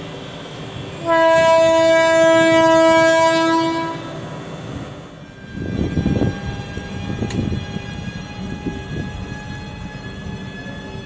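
WAG12 electric freight locomotive sounding one long horn blast of about three seconds, then passing with a rumble and the clatter of wheels over the rail joints, under a steady electric hum.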